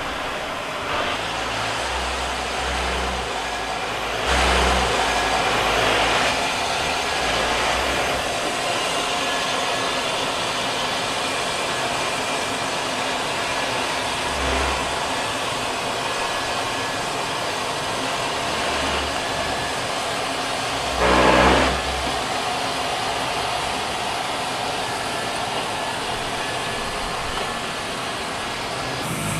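M1A2 Abrams tank's gas turbine engine running as the tank drives down the loading ramps of a C-17 cargo hold. The noise is steady and swells louder twice, a few seconds in and again about two-thirds of the way through.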